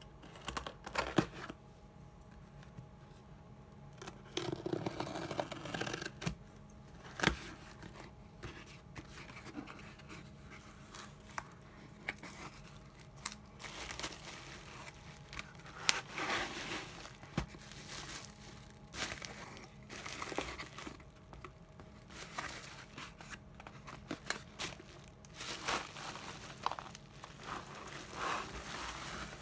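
A utility knife slitting packing tape and cutting plastic bubble wrap, with cardboard box flaps pulled open and bubble wrap crinkling and rustling as it is handled. Irregular tearing and rustling comes and goes, with a few sharp clicks.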